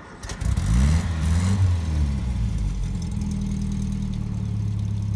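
1956 Nash Metropolitan's four-cylinder engine catching and revving up and back down, then settling into a steady idle about three seconds in.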